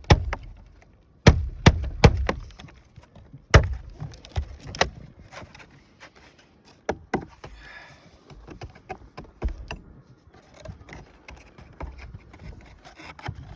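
Hammer knocking on brittle wood roof shakes while nailing them down: irregular sharp wooden strikes, three quick ones about a second in, two heavier single hits a little later, then lighter scattered taps.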